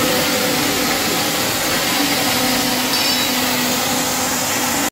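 Synthetic hair filament production line running: a loud, steady machine hiss with a faint low hum underneath.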